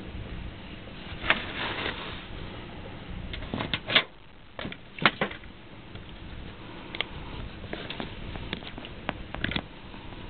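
Scattered light clicks and taps as small parts are handled on a soldering bench: a wire and Deans plug being positioned in a helping-hands clamp. The clicks are sharpest about four and five seconds in, over a steady low hiss.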